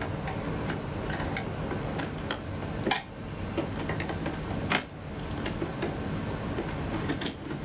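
Scattered light clicks and knocks of screws and a plug-in module being worked out of an oscilloscope by hand, with two sharper knocks about three and five seconds in, over a steady low background hum.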